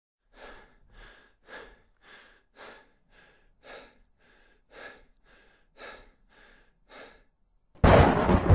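A person breathing heavily and rhythmically, about two breaths a second, in-breaths and out-breaths alternating. Near the end a sudden loud hit comes in as music starts.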